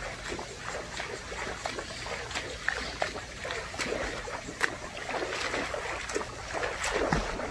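Water splashing and trickling in short, irregular splashes, as from someone swimming.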